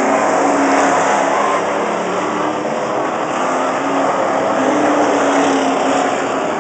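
A field of stock cars racing around an oval track. Several engines run hard at once, their overlapping tones shifting in pitch as the cars go round.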